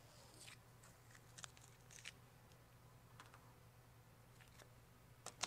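Near silence over a steady low hum, broken by a few faint ticks and a sharper pair of clicks near the end: small handling sounds of vinyl stripe film being pressed and tucked by hand.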